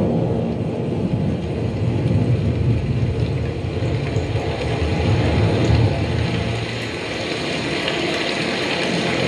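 JBL Bar 1300 soundbar playing a demo soundtrack: a deep bass rumble for about the first six seconds, easing into a steady ambience like running water.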